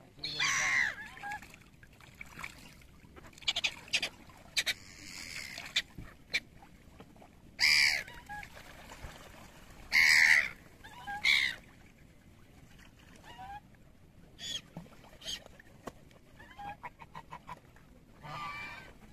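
Domestic geese honking on open water, a series of separate loud calls with pauses between them, the loudest about a second in, near the middle and just after.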